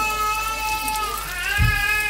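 A young child whining in two long, drawn-out, high-pitched cries, the second starting about a second and a half in, with a few soft low thumps near the end and a pan faintly sizzling underneath.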